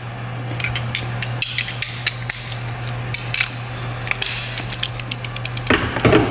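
Steel hand tools (socket, extension and breaker bar) clinking and clattering in short, irregular knocks over a steady low hum, with a louder clatter near the end.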